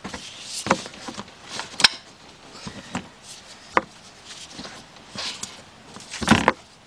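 Irregular sharp metal clicks and knocks from a half-inch ratchet and a stretch-fit belt installation tool on the crankshaft pulley as the engine is turned over by hand to roll the belt on. The loudest is a short cluster of knocks near the end.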